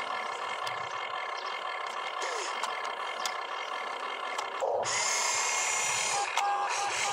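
Electric motors and gearboxes of an RC excavator whirring steadily as the boom and arm move. About five seconds in the whine gets louder and higher as the upper body starts to swing round.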